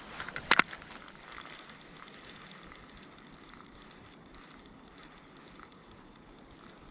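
A pair of sharp knocks about half a second in, then a faint, steady hiss of rain falling.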